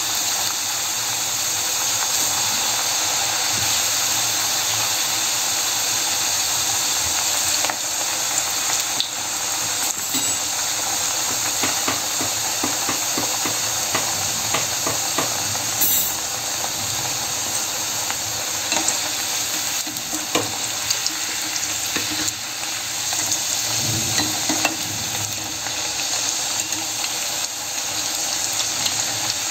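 Thattai, flat rice-flour crackers, deep-frying in hot oil: a steady sizzle full of small crackles, with a few light clicks. The oil is still bubbling hard, a sign the crackers are not yet done.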